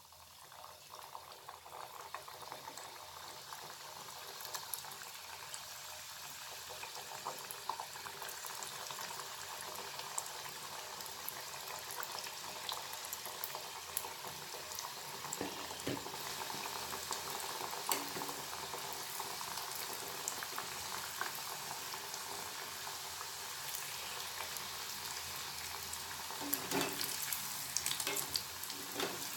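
Nimki, folded maida dough triangles, deep-frying in a pan of hot oil: a steady crackling sizzle that starts as the first piece goes in and grows louder over the first several seconds as more pieces are added. Near the end there are a few knocks and splashes as a wire skimmer stirs the pieces in the oil.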